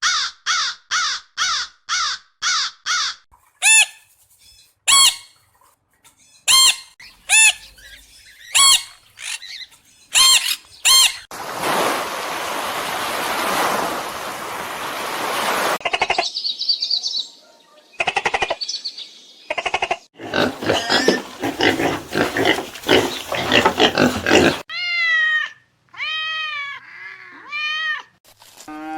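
A sequence of different animal calls, one after another: a quick run of bird chirps, then spaced single calls, a long rough noisy stretch, and a few arching calls near the end.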